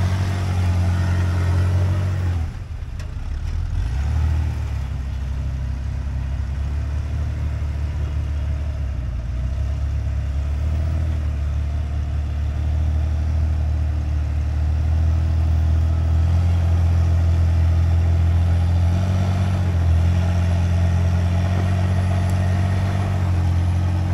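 Jeep engine running at low revs during a rock crawl, the throttle eased up and down so the low drone shifts slightly in pitch, with a brief drop about two and a half seconds in.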